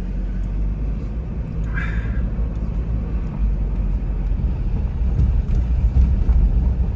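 Car driving slowly along a dirt road, heard from inside the cabin: a steady low rumble of engine and tyres on the dirt, with faint scattered ticks and a brief higher sound about two seconds in.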